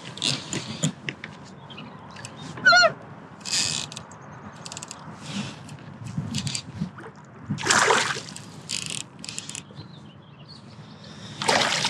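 A bass being fought and reeled in on a Loongze Airlite B101 baitcasting reel: the reel's clicking and cranking, with bursts of water splashing as the fish comes to the kayak, strongest about a third of the way in, around two-thirds and near the end.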